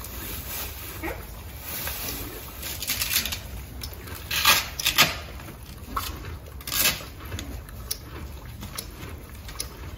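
Handling noise from a new Equilibrium Tri-Zone horse boot being unwrapped and readied: rustling throughout, with three short rasping rips around the middle.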